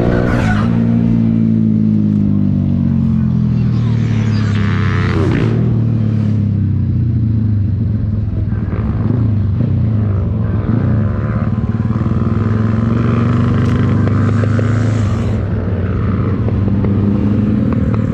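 Motorcycle engine running under way. Its pitch eases down over the first few seconds, climbs again, then holds fairly steady. Brief rushes of noise come about half a second and five seconds in.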